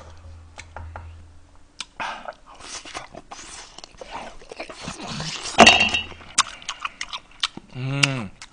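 Close-miked eating of braised beef short ribs: chopsticks clicking against the pan, then biting and wet chewing, loudest a little past halfway, and a short hummed 'mm' of enjoyment near the end.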